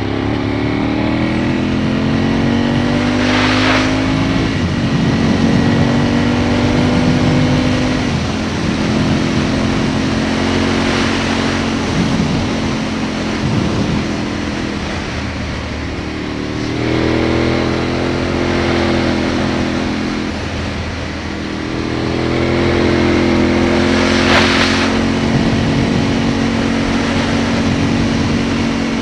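Aprilia Tuono motorcycle engine heard on board, accelerating through the gears: its pitch climbs in several runs and drops back between them at each gear change, over steady wind rush.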